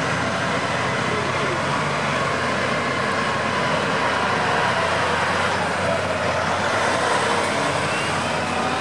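Heavy 8x8 military fuel tanker truck of the HEMTT type passing close, its diesel engine and large off-road tyres making a loud, steady rumble that grows a little louder as it goes by about halfway through.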